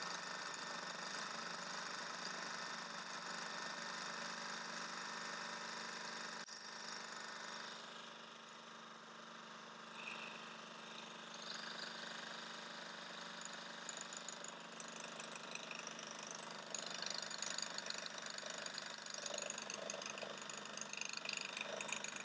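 Magimix Cook Expert food processor motor running steadily with the mini bowl, blending egg yolk, mustard and oil into mayonnaise. The hum drops abruptly about six seconds in. Irregular clinks and rattles join it in the second half.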